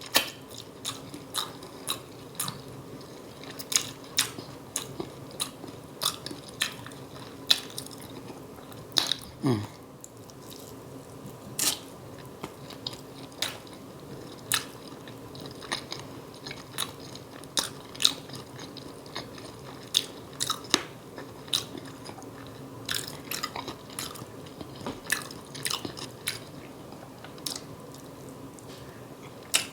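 Close-miked chewing with wet mouth smacks: sharp, irregular smacks about once or twice a second.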